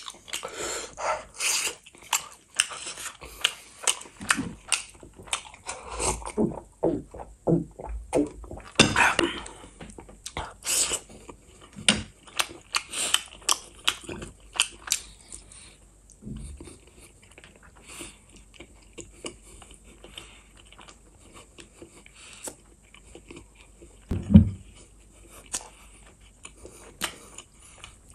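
Close-miked eating sounds: wet chewing, biting and lip-smacking of someone eating sausage, egg and gravy-soaked rice by hand, a stream of short sticky clicks and smacks. Near the end, one louder low thump.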